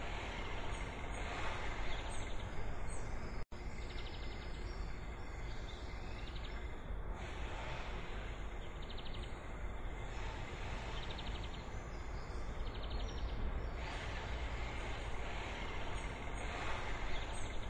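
Nature ambience laid under the animation: a steady rushing background with birds chirping now and then. The sound cuts out for an instant about three and a half seconds in.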